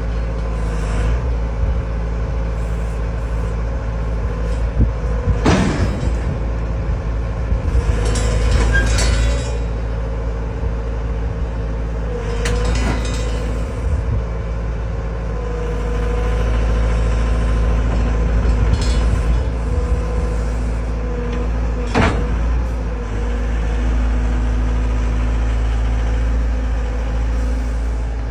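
XCMG 60G excavator's diesel engine running steadily under hydraulic load as the machine levers itself up onto a dump truck's bed with its boom and bucket. A few sharp knocks sound over the engine, the clearest about a fifth of the way in and again about three quarters of the way through.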